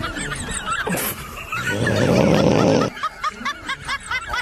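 Short repeated chuckling laughs throughout. About a second and a half in, a loud rough snore lasts just over a second and then cuts off sharply.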